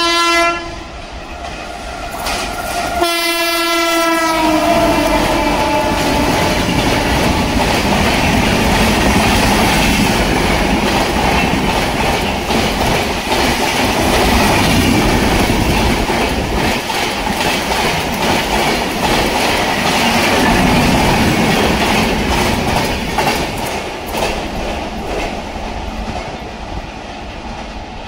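WAP-7 electric locomotive's horn sounding at the start, then a second blast about three seconds in whose pitch drops as the locomotive passes. Then the LHB coaches run past with a loud rush and continuous wheel clatter over the rail joints and points, fading near the end.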